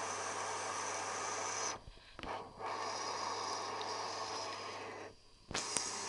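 Tricity Bendix AW1053W washing machine running its wash cycle: a steady hiss over a low hum. The sound drops away briefly twice, with a few knocks around the drops.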